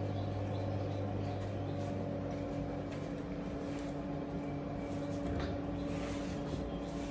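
Steady machine hum with a constant low tone, and a few faint ticks.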